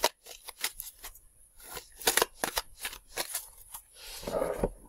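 Tarot cards being shuffled by hand: an irregular run of sharp card snaps and clicks, with a longer rustle of sliding cards about four seconds in.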